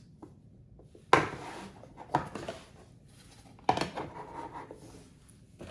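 Hard plastic parts of a 3D scanner turntable being handled, knocking and clattering together three times.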